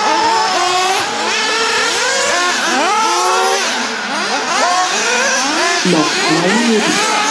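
Several 1:8 scale nitro off-road RC buggies racing together, their small two-stroke glow engines revving up and down in many overlapping rising and falling high whines.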